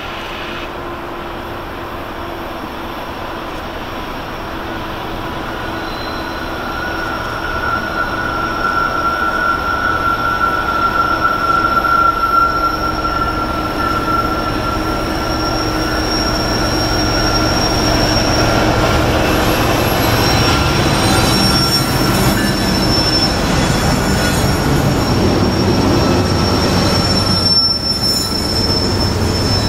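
Diesel locomotives of a double-stack intermodal freight train approach, growing steadily louder, and pass, followed by the stack cars rolling by. Steel wheels squeal on the curved track in thin, high, steady tones.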